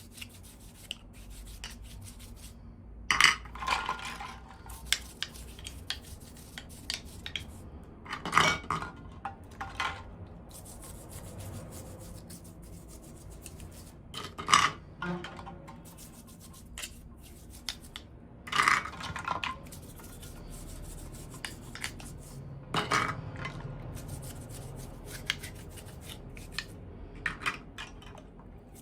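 Small hard plastic toy pieces and packaging being handled: scattered sharp clicks and short clatters every few seconds, with soft rubbing between.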